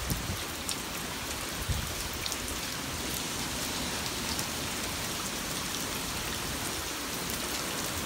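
Heavy hurricane rain falling steadily onto standing floodwater over a concrete driveway and lawn, with small drop splashes ticking through a constant wash of sound.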